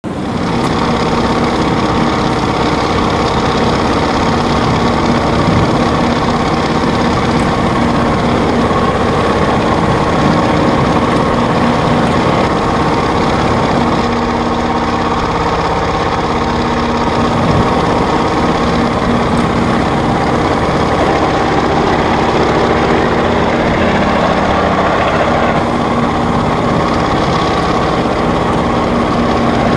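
Propeller aircraft engines running steadily in flight: a loud, continuous hum whose tone shifts slightly about halfway through.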